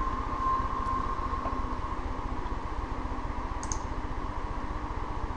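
Steady background hum and hiss of room tone, with a faint steady tone running through it and two small ticks, about a second in and near four seconds in.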